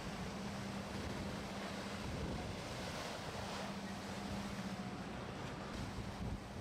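Wind noise on the microphone over the wash of surf, swelling and easing. A low steady hum sounds for the first second and again for a while in the middle.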